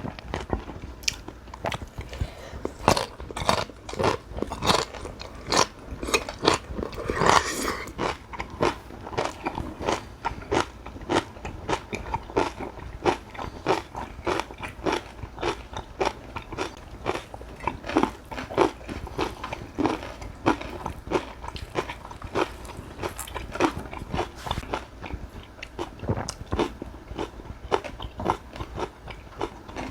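Close-miked eating sounds: steady chewing with frequent sharp crunches, several a second, as a meal of cockle bibimbap and kimchi is eaten.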